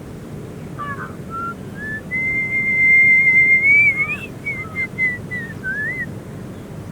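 A clear, high whistle: a few short notes, then a long held note, then a string of short wavering notes that step downward.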